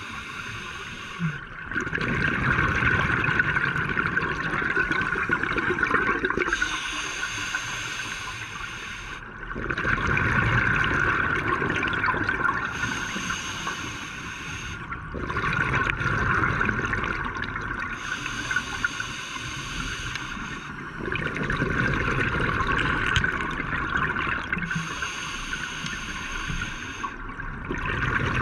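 Scuba diver breathing underwater through a regulator: a hiss on each inhale alternating with a rushing gurgle of exhaled bubbles, about four breaths roughly six to seven seconds apart.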